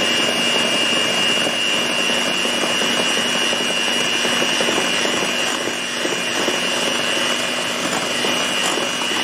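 Electric hand mixer running steadily, its twin beaters whisking a runny cake batter in a plastic bowl; a steady motor whine with a high-pitched tone over it.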